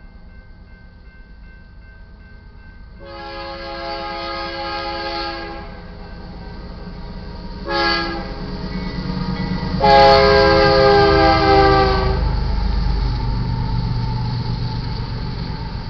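Lead locomotive air horn of a BNSF freight train sounding for the grade crossing: a faint held note, then a long blast about three seconds in, a short one near eight seconds, and a loud long blast around ten seconds. After that comes the low rumble of the diesel locomotives passing.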